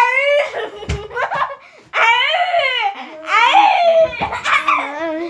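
A young girl laughing loudly in several long, high-pitched peals.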